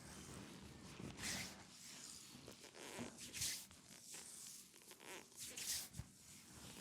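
Hands sliding briskly over the skin of a leg during a massage, several short swishing strokes a second or two apart. A soft thump comes about six seconds in.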